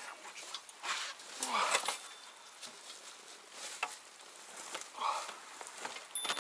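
Dry leaf litter rustling and crunching underfoot as someone shuffles and shifts around a heavy motorcycle, with scattered sharp clicks and two louder crunching swishes, about one and a half and five seconds in.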